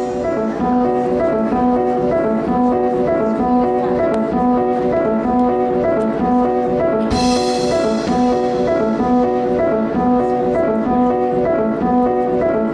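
Upbeat instrumental dance music with a repeating pattern of short notes and a steady beat, and a sudden bright accent about seven seconds in.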